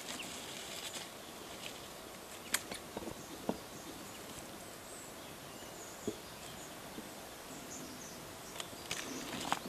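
Quiet outdoor ambience in a vineyard with a few sharp snips of hand pruning shears cutting grape bunches from the vine, spread out singly, then a short cluster of clicks and handling noise near the end.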